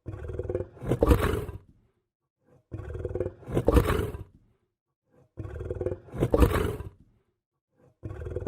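Lion growling: a series of evenly spaced growls, each about a second and a half long, building to a peak and then dropping away, with short silences between them. A fourth growl begins near the end.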